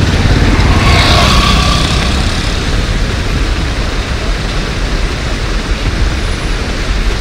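Road traffic noise from a standstill jam: a steady low rumble of many vehicle engines idling and running, buses and trucks among them.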